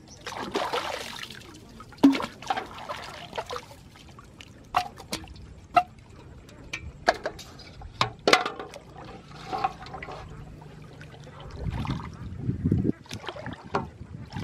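Pond water splashing and trickling around someone standing waist-deep, with scattered short splashes and knocks as a hooked fish is handled over a metal pot. Near the end, a longer low sloshing as he wades through the water pushing the pot.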